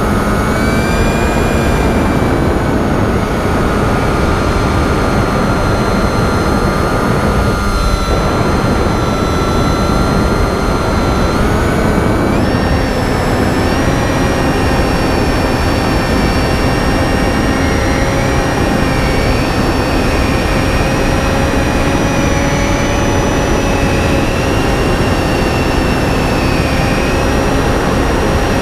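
Electric motor and pusher propeller of a Finwing Penguin FPV plane in flight, a steady whine over wind rush, stepping up in pitch about twelve seconds in as the throttle is raised.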